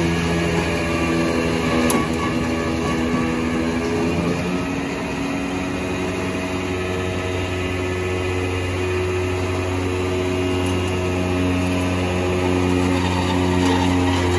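Flatbed tow truck's engine and winch running steadily as a wrecked car is pulled up onto the bed, a continuous mechanical drone whose pitch shifts about four seconds in.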